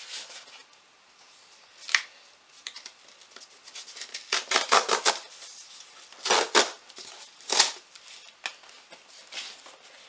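A cardboard shipping box being pulled and torn open by hand, with a sharp click about two seconds in and several bursts of tearing and rustling, the loudest about halfway through.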